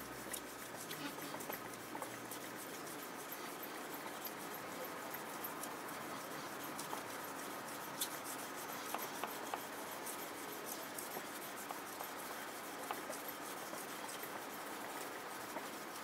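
Steel kitchen knife blade being rubbed back and forth on a wet whetstone during sharpening: a soft, steady scraping with scattered small clicks.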